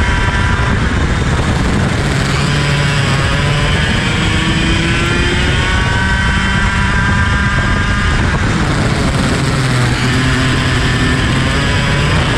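IAME KA100 kart's 100cc two-stroke engine running hard: its pitch climbs steadily, falls off around eight seconds in, then climbs again toward the end, over steady wind noise.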